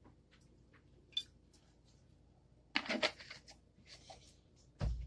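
Faint kitchen handling sounds of a deep cooking pot being set up and oil being put in: scattered light clicks, a brief scraping rustle about three seconds in, and a dull knock near the end.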